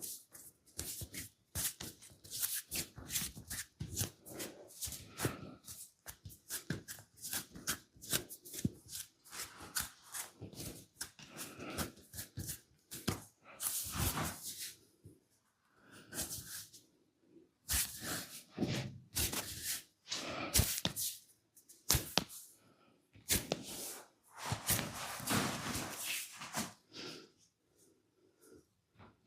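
Hands working over skin in a massage: quick, irregular slaps and pats, with longer brushing rubs now and then.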